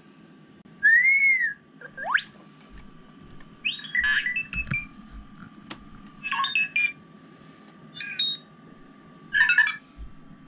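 R2-D2 beeps and whistles played through the speaker of a Light My Bricks sound kit inside a Lego R2-D2 (75308): a short arching whistle about a second in, a fast rising whistle just after, then several bursts of chirps and trills. A faint steady high tone runs beneath.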